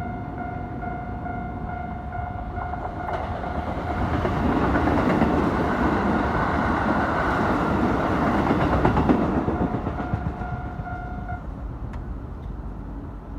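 Japanese level-crossing warning bell ringing in a steady pulsing beat while a Keikyu train runs through the crossing. The rumble of the passing train builds over a few seconds, stays loud for about five seconds, then fades, and the bell stops about eleven seconds in.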